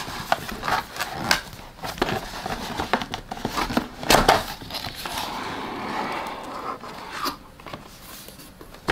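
Gimbal packaging being opened and handled by hand: scattered clicks and knocks with rustling and rubbing, and a louder knock about four seconds in.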